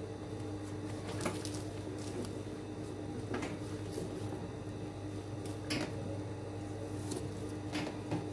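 Steady low hum of an industrial sewing machine's motor left running while the fabric of a bag is shifted and turned by hand, with fabric rustling and a few soft knocks; no stitching.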